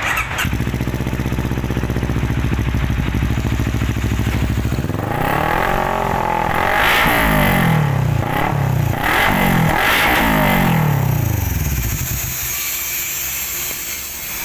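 CFMoto NK400 parallel-twin motorcycle engine through a Villain Exodus aftermarket muffler, idling and then blipped up about three times before dropping back toward idle.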